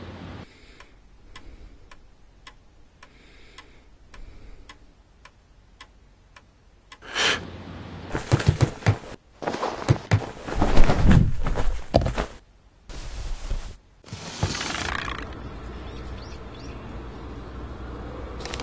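A clock ticking about twice a second. Then several seconds of loud rattling, clattering and thumps, and after that a steady low background hum.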